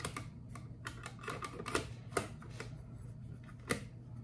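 A brass lens being fitted into the lens board of a Graflex large-format camera: a run of irregular small clicks, taps and metal scrapes as it is handled into place.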